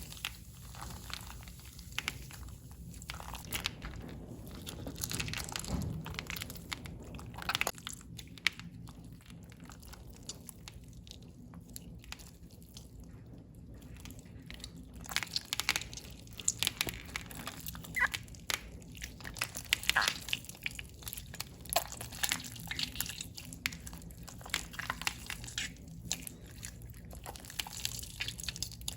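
Hands kneading and pressing slime, making irregular sticky crackles and small popping clicks that grow denser in the second half.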